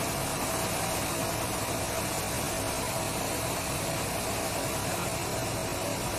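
Borewell drilling rig running steadily, its compressed air blasting muddy water and rock cuttings out of the bore around the drill rod. It makes a continuous rushing hiss with a faint steady hum underneath.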